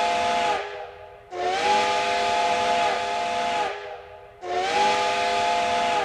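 Steam train whistle sounding in long chord-like blasts over hissing steam: a blast ending about half a second in, then two more blasts of a couple of seconds each.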